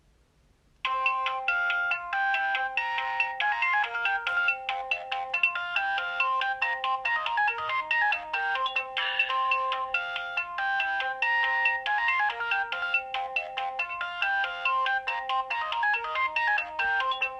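Alcatel OT 735 mobile phone playing one of its built-in default ringtones: a polyphonic electronic melody with several notes sounding together. It starts about a second in and stops at the very end.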